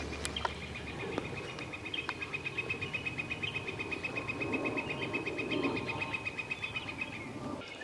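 A calling animal's steady, rapid trill of evenly spaced pulses at one high pitch, lasting about seven seconds and stopping near the end, with a few soft clicks in the first second.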